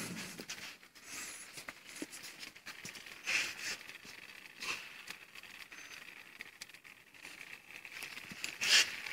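Plastic bag crinkling and rustling in short irregular bursts, the loudest near the end, over a faint steady high whine.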